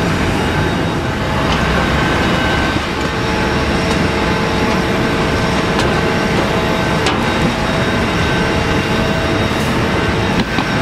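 Steady cabin noise inside an airliner before take-off: a loud rushing roar with several steady whining tones running through it.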